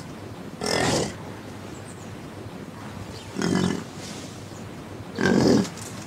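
Three short animal calls, each about half a second long and about two seconds apart, noisy rather than clearly pitched.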